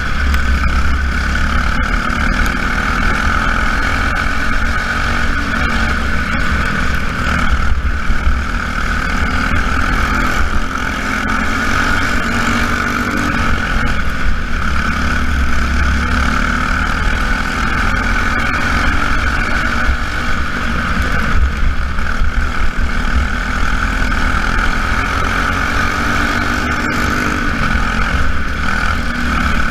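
Jr. Lite race car engines running laps in a feature race: a steady, loud engine drone that swells and eases slightly as the cars circle the track.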